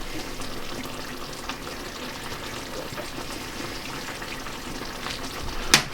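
Thai green curry with coconut milk simmering in a pan, a steady liquid hiss, with one sharp knock near the end.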